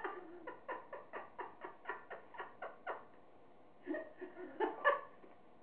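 A person laughing: a run of short, even "ha" pulses, about four a second, for the first three seconds, then after a short pause a louder burst of laughter near the end.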